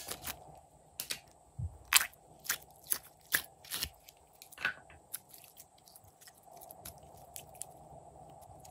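Stiff store-bought rainbow slime being peeled out of its plastic tub and squeezed by hand: a run of sharp crackling clicks for the first few seconds, then only faint scattered ticks.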